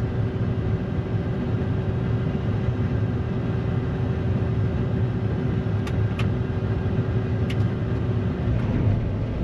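Combine harvester running steadily: a low engine rumble with a steady hum that cuts out near the end, and a few faint clicks partway through.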